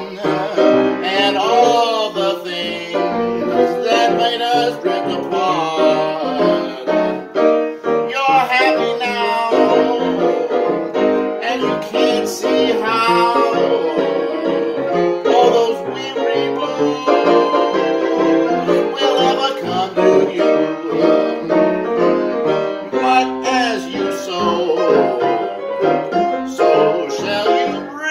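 Upright piano played solo in an early jazz style, both hands going steadily with a melody over a rhythmic left hand.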